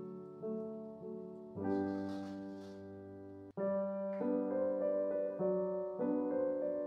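Background solo piano music, with notes struck one after another. The music cuts out for an instant about halfway through, then carries on.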